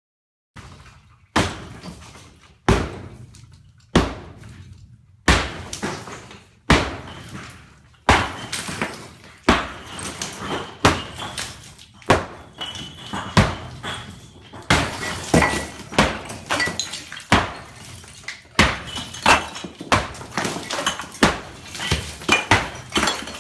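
Repeated hammer blows, one about every second and a half at first, then quicker and overlapping from about eight seconds in.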